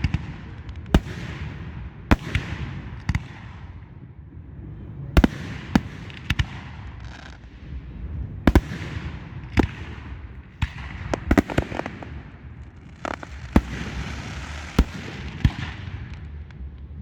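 Aerial fireworks going off: a run of sharp bangs about one a second, some in quick clusters, each followed by a fading crackling hiss.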